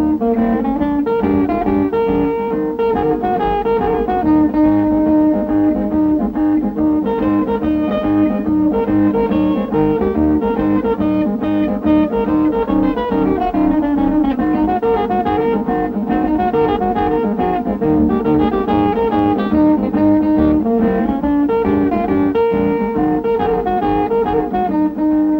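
Background music led by a plucked guitar, playing a busy run of short notes.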